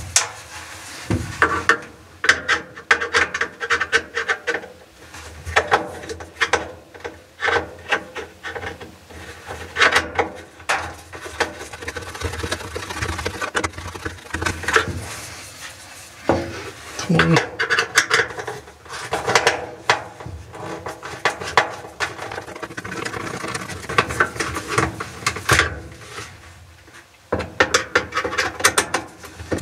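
Phillips screwdriver scraping and clicking as screws are worked out of a clothes dryer's plastic lint-trap housing, along with hands and arms rubbing against the housing and drum. The sounds come in irregular scratchy strokes and are heard from inside the dryer drum.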